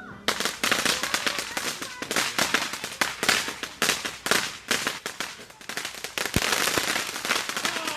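Fireworks going off close by in a rapid, continuous string of sharp crackling bangs, starting just after the opening and running on for over seven seconds.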